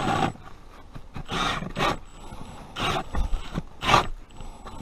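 Plastic ice-fishing sled hauled through deep snow, scraping and crunching in irregular bursts.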